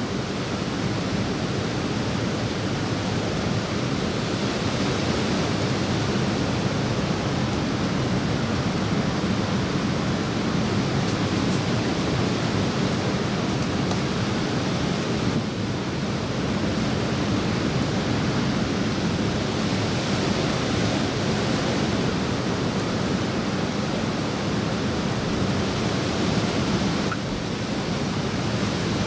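Steady rushing of water outdoors, an even hiss and rumble with no distinct splashes or drips, dipping slightly twice.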